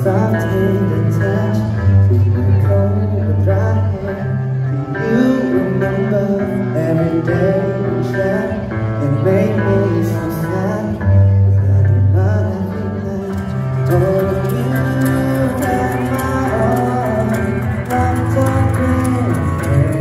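Live band music with a sung lead vocal: electric guitar and bass guitar under a male singer, played loud over a concert PA.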